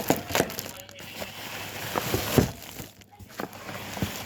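Rustling and handling noise with several short knocks, as packaging and parts are handled.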